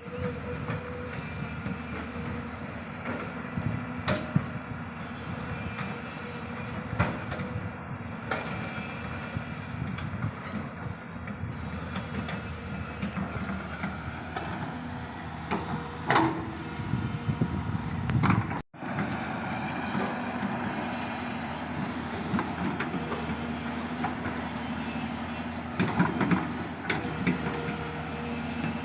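Hydraulic excavator's diesel engine running steadily under working load, with scattered sharp metallic clanks. The sound drops out for a moment about two-thirds of the way through.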